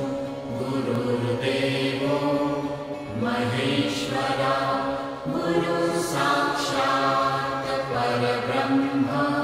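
Background music: a chanted devotional vocal line sung in long held notes over a steady drone.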